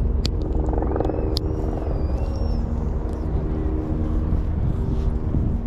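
A steady low engine-like drone with a constant hum. Two sharp clicks come about a quarter second and a second and a half in, and a faint wavering whistle is heard between them and shortly after.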